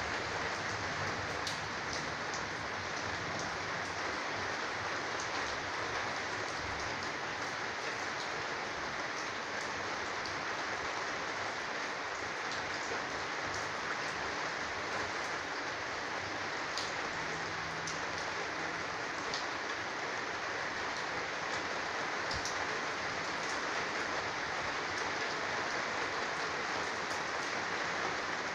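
Steady downpour of storm rain: an even hiss, with a few sharper ticks of single drops now and then.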